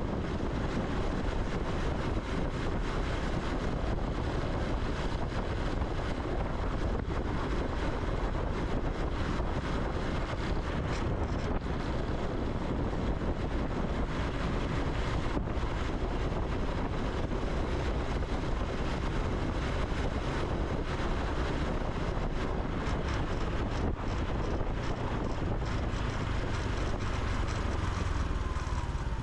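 Honda Super Cub C125's 125 cc air-cooled single-cylinder engine and exhaust running steadily under way, with wind rushing over the microphone.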